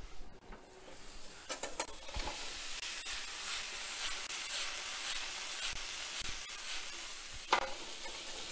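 Vegetables sizzling in a hot pan: a steady high hiss with small crackles that sets in about a second in, with a sharp knock near the end.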